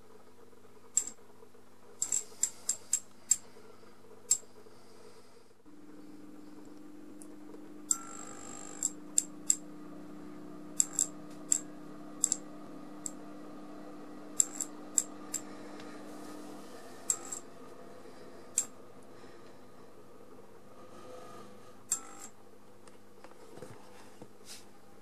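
Magnetic ballast of a worn-out 20 W fluorescent tube humming steadily, the hum growing stronger for a stretch in the middle, with dozens of sharp, irregular clicks in uneven clusters over it. The tube is at the end of its life, with only one end glowing.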